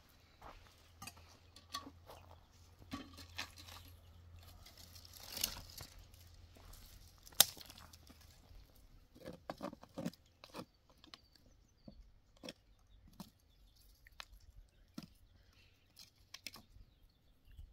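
Quiet, scattered clicks and taps, with one sharp click about seven seconds in.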